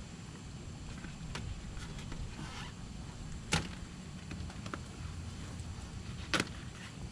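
Hand work on a pickup's plastic door trim: faint scattered ticks and rustles, with two sharp plastic snaps about three seconds apart, the second the louder, over a low steady hum.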